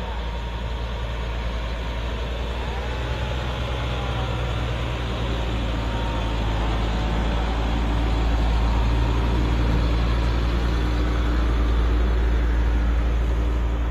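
Steady low engine drone of a vehicle, growing slowly louder through the middle and staying up near the end.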